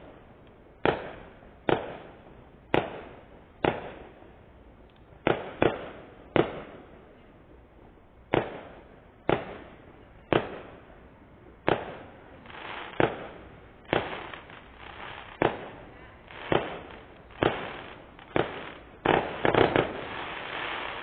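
Aerial fireworks going off in a long series of sharp bangs, about one a second, each fading away after the blast; near the end several bangs come close together.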